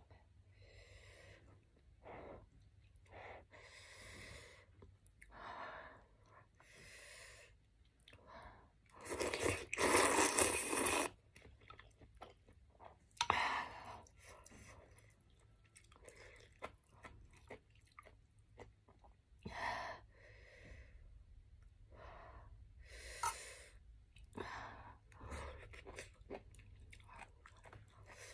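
Close-up eating sounds of a person with spicy rice noodle soup: repeated slurping and chewing in short bursts, with one long, loud slurp about nine to eleven seconds in.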